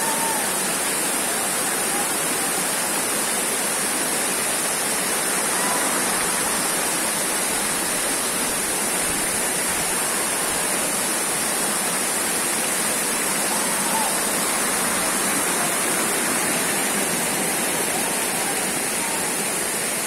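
Waterfall cascading down a stepped rock face: a steady, unbroken rush of falling water.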